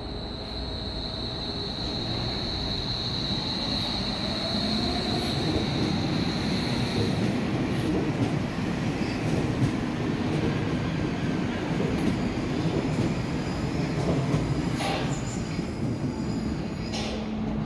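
Hamburg U-Bahn train running into the station, with a high steady squeal for the first seven seconds or so over the rumble and rattle of the cars rolling along the platform, which grows louder. A few sharp clicks come near the end.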